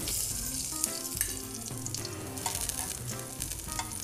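Olive oil sizzling steadily in a hot frying pan around a garlic clove and a sprig of rosemary, infusing the oil. A few light clicks come from metal tongs moving the rosemary in the pan.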